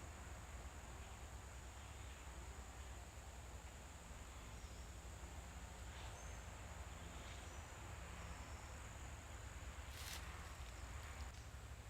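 Steady high-pitched drone of insects in summer woodland, faint, with a low rumble underneath. A few soft clicks about halfway and near the end.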